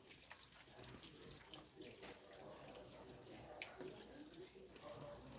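Faint rain falling, with many individual drops ticking irregularly over a steady wash of water.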